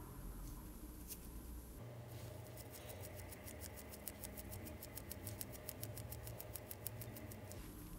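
ETA 2824-2 automatic watch movement ticking: a fast, very even ticking, about eight ticks a second, starting about two seconds in and stopping just before the end, with a single click about a second in.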